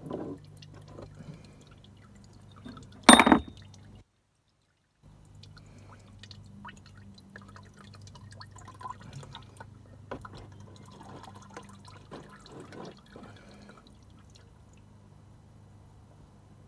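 An oil filter being worked loose with a filter wrench under a car: scattered small metal clicks and taps, with one loud clank about three seconds in. The sound cuts out completely for about a second just after the clank.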